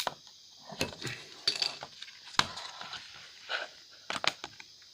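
Light clicks and clinks at irregular intervals from a laptop battery pack's cracked plastic case as it is pried and handled by hand to get at the lithium-ion cells.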